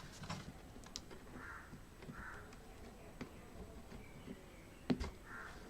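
Faint scattered clicks and taps of hands working a plastic laptop keyboard plate, pressing its studs home for heat-staking with a soldering iron, with one sharper click a little before the end.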